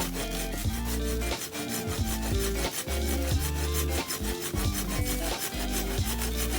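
A saw rasping through wood, over background music with a bass line.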